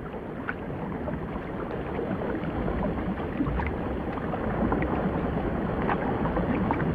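Steady rushing, watery noise with faint scattered clicks and pops, growing slightly louder.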